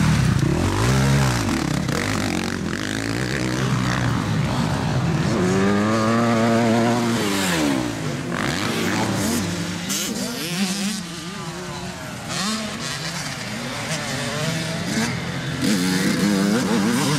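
Motocross dirt bike engines revving hard and then dropping off, over and over, as the bikes accelerate out of turns and over jumps. The pitch rises and falls several times, with a fresh rev close to the start, one in the middle and one near the end.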